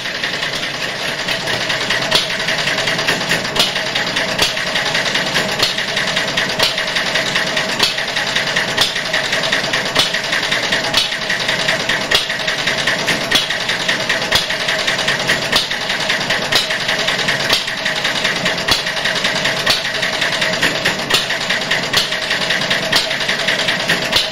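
Home-built single-valve engine running steadily on the bench, a continuous mechanical clatter with sharp clicks recurring throughout. Its spark-saver ignition has it firing on nearly every ignition.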